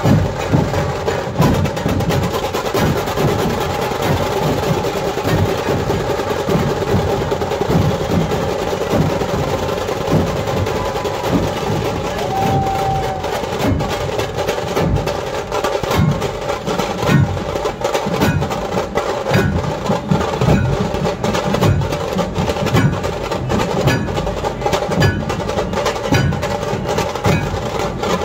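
Dhol-tasha ensemble playing: many large dhol barrel drums beaten together in a fast, driving rhythm, with the sharp cracks of tasha drums over the top.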